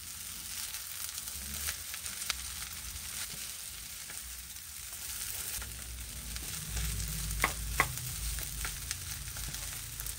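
Fried rice sizzling in a stone-coated wok while a wooden spatula stirs and scrapes through it. Two sharp clicks come close together about seven and a half seconds in.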